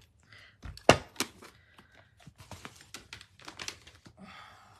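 Hard plastic clicks and knocks as a stamp-block storage case is shut and moved and a clear acrylic stamp block is set down and handled on the desk: a sharp clack about a second in, a second one just after, then a run of lighter taps and clicks.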